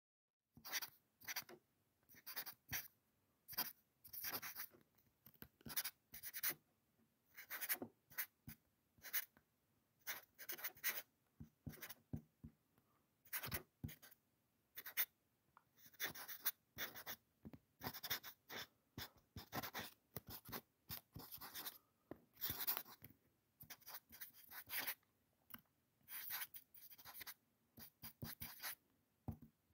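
Drawing on paper: a drawing tool scratching across the page in uneven strokes, from a fraction of a second to about a second long, with short pauses between them. It starts about half a second in.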